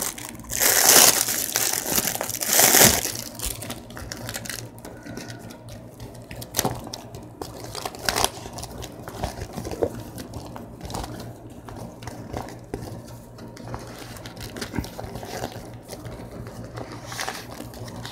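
A clear plastic bag crinkling and rustling as hands work it open. It is loudest in two bursts in the first three seconds, then goes on as lighter, scattered crinkles.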